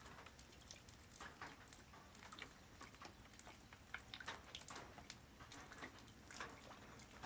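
Light rain falling on the ground: faint, irregular patter of separate drops.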